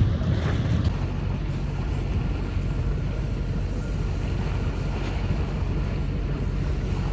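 Sailing yacht's inboard engine running steadily as a low, even drone under the hull noise, with wind on the microphone that is stronger in the first second.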